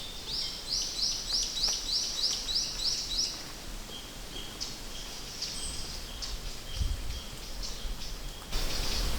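Wild birds singing: one bird repeats a short, high note about three times a second for roughly three seconds, then scattered chirps and a repeated lower note follow.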